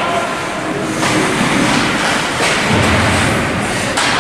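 Ice hockey play on a rink: a steady scraping, rushing noise of skates on ice, broken by several sharp knocks of sticks and puck.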